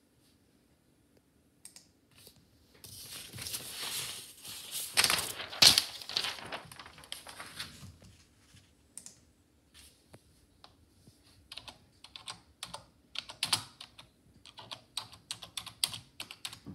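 Typing on a computer keyboard: separate, irregular keystroke clicks through the second half. Before them, from about three seconds in, comes a few seconds of dense rustling clatter, the loudest part.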